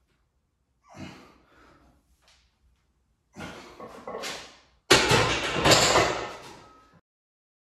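Softer knocks and shuffling, then a loaded barbell clanking into the J-hooks of a steel power rack about five seconds in, the plates rattling and ringing for a couple of seconds before the sound cuts off suddenly.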